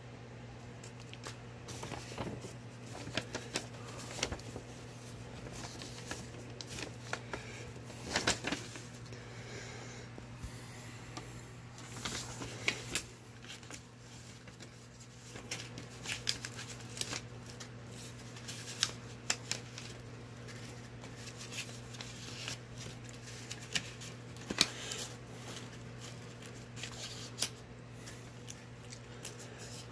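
Paper envelope, invoice and novelty banknotes being handled: irregular rustling, crinkling and light clicks of paper, over a steady low hum.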